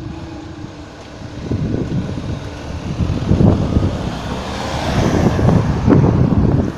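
Cars driving one after another over a railway level crossing just after the barriers have lifted. The traffic noise builds, loudest as a car passes close about five seconds in.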